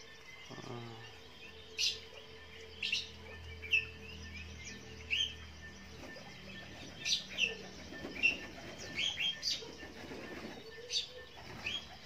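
Orange-headed thrush calling: about a dozen short, high chirps, each sliding down in pitch, at irregular intervals of roughly a second.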